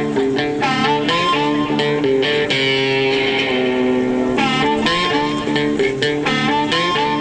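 Intro music: a guitar-led instrumental, with plucked notes in a repeating pattern and a held chord about halfway through.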